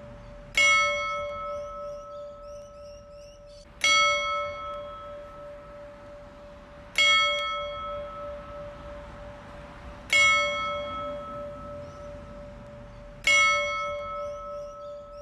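A single church bell tolled slowly, struck five times about three seconds apart, each stroke ringing on until the next.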